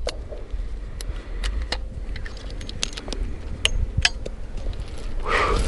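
Metallic clicks and clinks of a Chiappa Rhino .357 Magnum revolver being unloaded, its cylinder open and spent brass cases being worked out, in a string of irregular sharp clicks. A brief rustle near the end.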